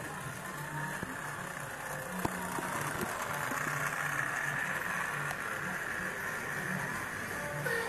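Lego train motor, driven by an old Lego battery pack, whirring steadily as the train runs on plastic Lego track and passes close by. The sound is loudest in the middle of the pass.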